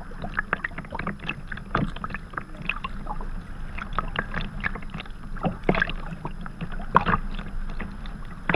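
Sea kayak being paddled: paddle blades dipping and splashing, water lapping and dripping against the hull in many small irregular splashes over a steady low rumble, with two louder splashes past the middle.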